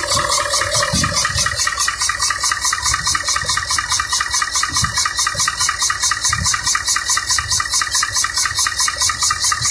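Freshly overhauled Mitsubishi Fuso 8DC9 V8 diesel engine running steadily on a stand, loud, with a rapid even pulse.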